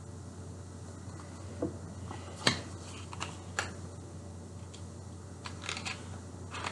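A few scattered light taps, clicks and rustles of packaging and small items being handled on a table, over a low steady hum.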